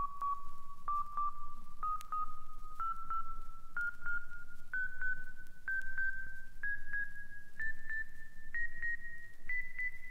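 Sonar-like synthesizer pings in an electronic disco intro: short paired beeps about once a second, each pair a step higher in pitch, climbing steadily.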